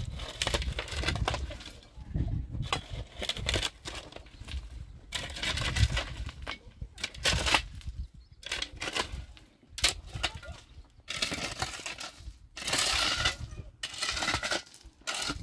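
Irregular crunching, rustling and knocking, as of things being handled and moved about, in uneven bursts with sharp clicks between them.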